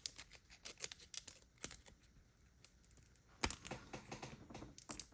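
Pokémon trading cards and a foil booster pack being handled: light scattered clicks and rustles, with a couple of sharper ticks.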